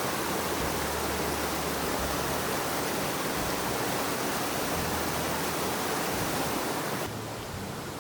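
Mountain stream water rushing over rocks, a steady wash of noise that drops suddenly to a quieter, duller rush about seven seconds in.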